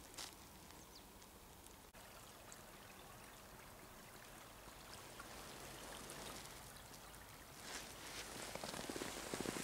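Small woodland stream running faintly in a snowy gully, louder over the last two seconds.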